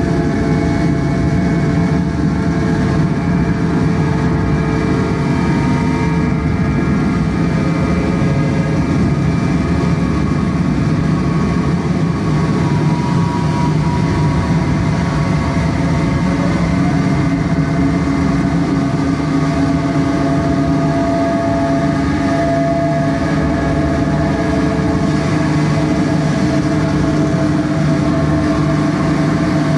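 Electronic noise music played live: a dense, steady, machine-like drone with a heavy low rumble under layered held tones. Some of the upper tones fade in and out, and one briefly slides upward about halfway through.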